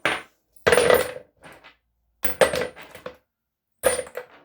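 Rusty steel bolts dropped by the handful into a rock tumbler barrel, clattering in three bursts about a second and a half apart.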